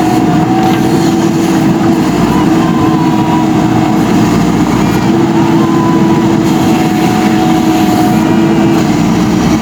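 Diesel engine of a JCB 3DX Super backhoe loader running steadily at working speed, with a continuous hum whose pitch shifts slightly a few times.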